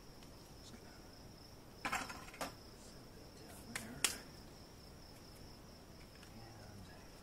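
Crickets chirring in one steady high tone, with a few sharp knocks about two seconds in and again about four seconds in, the last the loudest.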